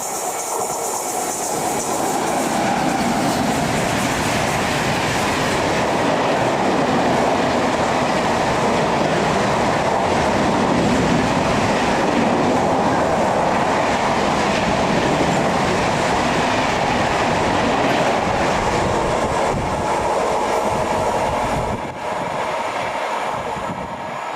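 Express train passing at speed: a continuous loud rumble and clatter of coach wheels on the rails. It builds over the first couple of seconds, holds steady, and drops off abruptly near the end.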